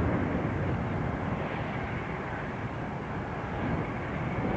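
Steady low rumble, typical of a Class 08 diesel shunter's engine running in the yard, with no clear beat or change.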